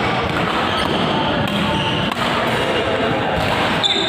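Badminton rally in a large indoor hall: racket strikes on the shuttlecock and short shoe squeaks on the court floor, over steady hall noise and background chatter, with a sharp hit near the end.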